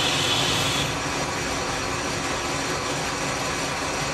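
Metal lathe running steadily, a hydraulic-cylinder part spinning in its chuck: a low mechanical hum with a constant hiss, a little brighter for the first second.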